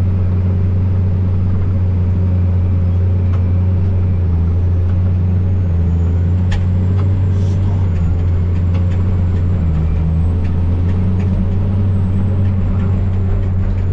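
Tractor engine running steadily under load while pulling a speed disc, heard from inside the cab. A couple of light clicks come about halfway through.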